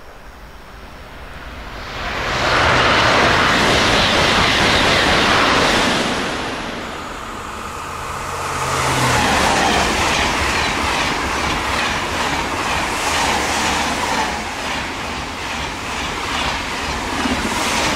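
TGV high-speed trains passing at speed. A loud rush of air and wheel noise builds about two seconds in and holds for several seconds before easing off. A second TGV then runs past close by, its rush carrying a rapid, regular beat of wheels going over the rail as the carriages go by.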